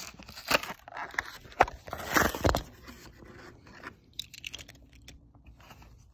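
Plastic blister pack being torn open from a Hot Wheels short card: crackling, crunching plastic and tearing card, with sharp loud snaps in the first two and a half seconds. After that there are a few scattered lighter clicks as the die-cast car is worked out of the pack.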